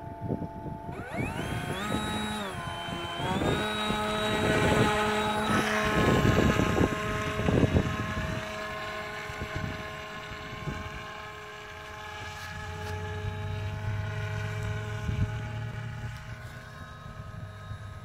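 RC model plane's motor and propeller spinning up to full throttle about a second in, then a steady high whine made of several tones that wavers slightly in pitch and grows fainter as the plane flies off. Gusts of wind rumble on the microphone, strongest in the first half.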